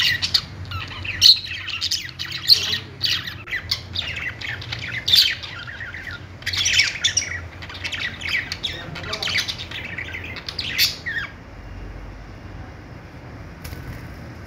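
Budgerigars chattering, a dense run of quick high chirps and squawky warbles that stops about eleven seconds in, leaving only a faint low hum.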